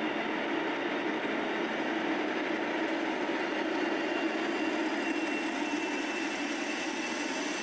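Steady rumble of a diesel train engine running, with a faint high whine coming in during the second half.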